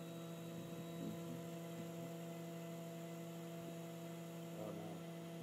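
Small electric fan motor spinning the fan on a balancing machine, a steady even hum with a clear pitch and overtones, during a balancing run in which the fan still reads well out of balance.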